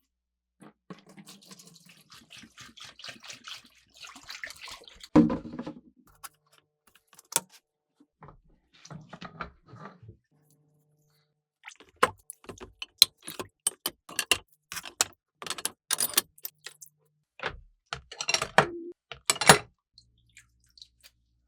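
Metal parts and hand tools clinking, knocking and scraping as they are handled, in scattered sharp strikes with patches of scratchy scraping.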